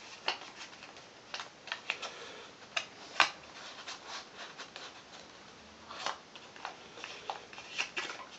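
Origami paper crinkling and crackling in irregular sharp clicks as the folded sections of an origami rose cube are popped open by hand, the loudest crackle about three seconds in.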